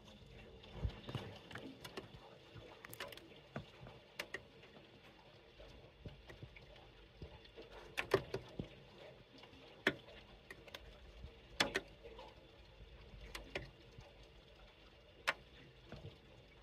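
Heavy rain falling as a steady hiss, with irregular sharp taps of drops striking a surface close by.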